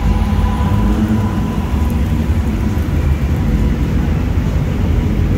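Lowered Volkswagen Jettas' engines running at low revs as they roll slowly in, a steady low rumble that fills the large hall.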